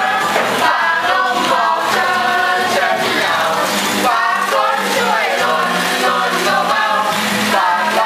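A crowd of young men and women singing loudly together in a group.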